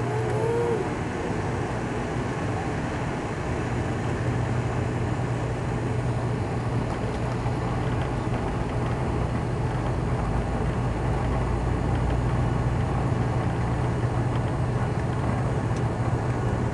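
Pratt & Whitney PW127 turboprops of an ATR 72-500, heard from inside the cabin during the takeoff roll. The engines run at high power as a steady drone with a strong low hum from the six-bladed propellers, over the rumble of the wheels on the runway. The sound grows slightly louder about ten seconds in as the aircraft speeds up.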